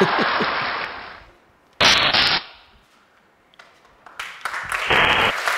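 Audience applause starting about three and a half seconds in, a few scattered claps building quickly into full applause. Before that the sound of the film excerpt fades out in the first second, and about two seconds in there is a short, loud burst of noise that starts and stops abruptly.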